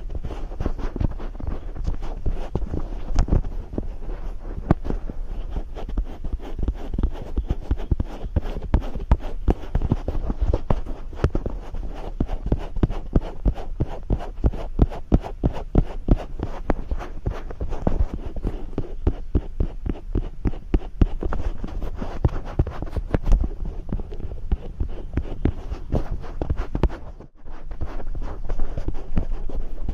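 ASMR ear massage with powder: fingers rubbing and pressing close against the microphone, a dense stream of soft crackles, scratchy rubs and low thumps. The sound drops away for a moment near the end.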